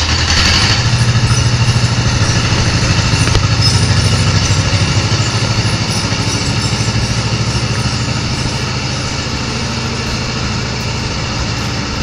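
A 1955 John Deere 40S tractor's two-cylinder engine running steadily as the tractor is driven, with even firing pulses. It eases off slightly near the end.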